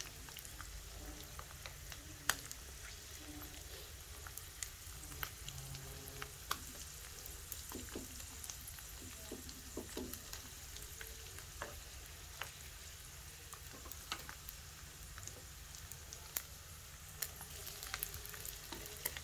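Dried snakeskin gourami frying in hot oil in a pan, a steady sizzle with scattered crackles and pops throughout, fried until crisp.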